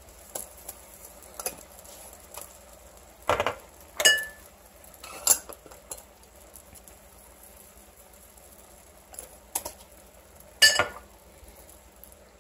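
About five sharp clinks and knocks of kitchenware against a pan of shredded cabbage while salt and pepper are shaken over it. The knocks come irregularly over several seconds, and two of them ring briefly.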